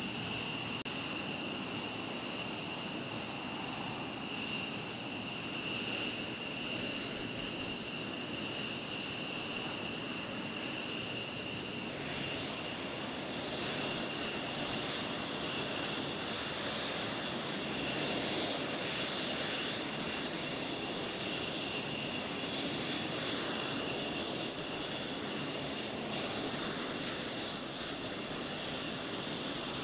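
Jet aircraft engines idling on the ground: a steady, high-pitched whine over a rushing noise. The pitch of the whine shifts about twelve seconds in.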